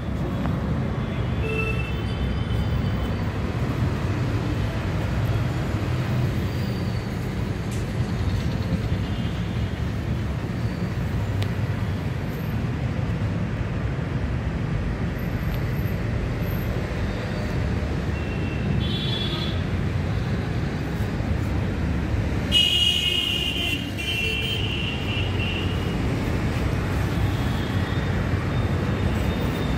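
Steady low traffic rumble from nearby roads, with a few brief high-pitched horn toots, the clearest about two-thirds of the way through.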